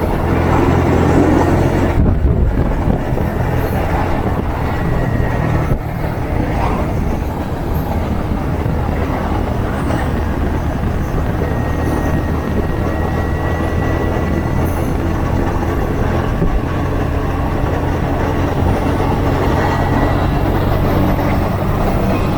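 Motorcycle engine running steadily at road speed, with heavy wind rush over the rider's microphone.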